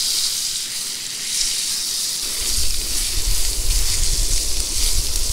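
Brown trout fillet sizzling as it fries in butter in a cast-iron skillet, a steady high hiss. From about two seconds in, a low rumble joins underneath.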